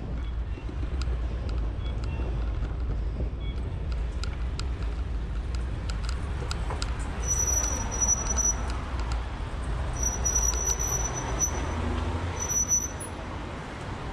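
City street traffic: a steady rumble of passing cars and buses heard from a bicycle. A high-pitched squeal comes and goes three times in the second half.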